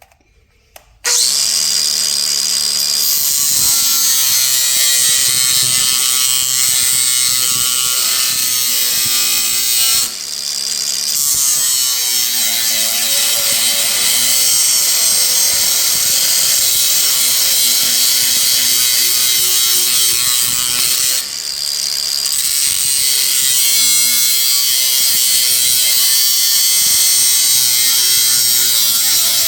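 Power grinder working a small metal latch part under load: a loud, steady grinding hiss with a motor whine that wavers as the pressure changes. It starts about a second in and eases off briefly twice, about ten and twenty-one seconds in.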